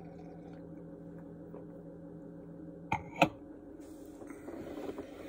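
Two sharp knocks about a third of a second apart, a little past halfway, the second louder: a stemmed beer glass being set down on a table. A steady low hum runs underneath.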